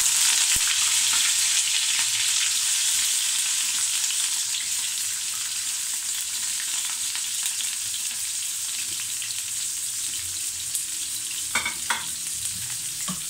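Freshly rinsed bitter gourd (karela) pieces sizzling as they shallow-fry in hot ghee in a wok. The sizzling is loudest at the start, just after the wet pieces go in, then slowly eases, with a couple of brief clicks near the end.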